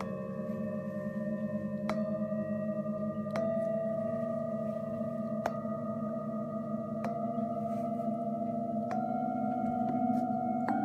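Himalayan singing bowls struck one after another, about every one and a half to two seconds. Each strike adds a new ringing tone that sustains over the others, while the low hum underneath wavers.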